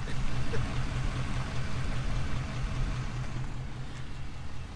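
A vehicle engine idling, a steady low hum with an even hiss over it.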